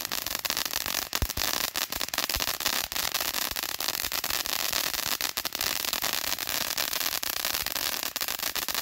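Phantom Fireworks Savage Fountain ground fountain burning: a steady hiss of spraying sparks, packed with rapid crackles and small cracks.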